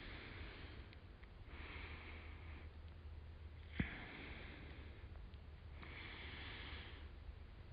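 Soft breathing close to the microphone: four slow breaths about two seconds apart, with one sharp click about halfway through, over a faint low hum.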